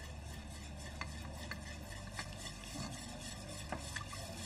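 A utensil stirring in a granite-coated pot, with light irregular clicks against the pot over a low steady hum, as stock is worked into a flour roux for a white sauce.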